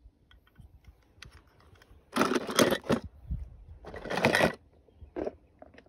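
Toy cars being handled: two rough scraping, crunching bursts about a second and a half apart, with scattered small clicks around them.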